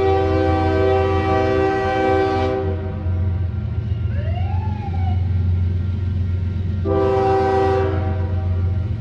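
First-generation Nathan Airchime K5HL five-chime locomotive air horn sounding its chord: a long blast that cuts off about two and a half seconds in, then a short blast about seven seconds in. A steady low rumble runs underneath.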